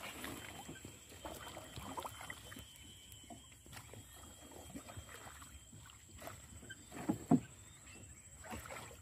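A small boat being poled through a dense mat of water hyacinth: a wooden pole stirs and splashes the water and rustles the floating plants, in scattered irregular strokes. Two louder knocks come close together about seven seconds in.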